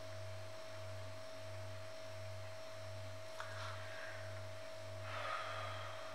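A steady high-pitched hum over a low hum that pulses about one and a half times a second, with faint rustling from the tarot deck being handled about three and a half and five seconds in.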